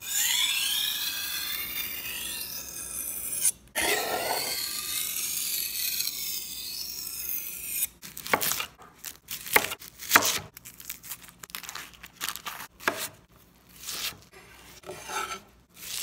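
A kitchen knife blade scraped along a whetstone in two long, continuous scrapes, broken briefly near four seconds. About halfway through it gives way to a chef's knife chopping onion on a wooden cutting board: sharp, irregular knocks.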